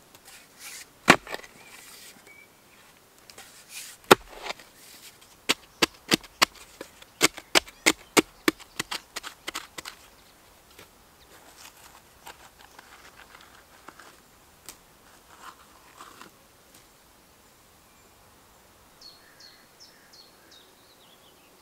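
Hand digging tool striking hard, dry soil: single blows about one and four seconds in, then a quick run of about two blows a second for several seconds, then fainter, scattered strikes and scrapes.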